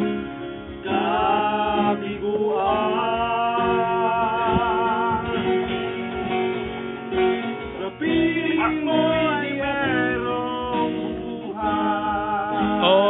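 Two acoustic guitars strummed together while a man sings a Tagalog love song over them, his voice held on long notes with vibrato. The singing comes in about a second in.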